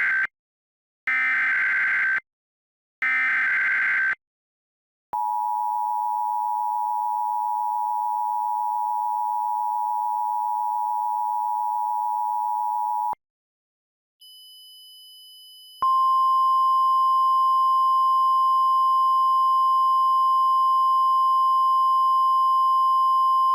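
Emergency Alert System alert tones. The data header's squawking bursts repeat, the last of the three ending about four seconds in. Then the two-tone attention signal is held for about eight seconds. After a brief silence, a single steady, louder alert tone sounds to the end, with a faint high tone beneath it.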